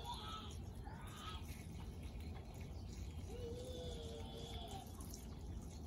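Gasoline trickling from a plastic gas can into a portable generator's fuel tank through the filler's filter screen, a faint steady pour. Birds call faintly in the background, with a few short chirps and one wavering call around the middle.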